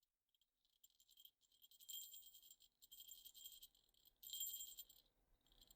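Small jingle bells shaken, faint at first and then in three short jingling bursts, the last the loudest.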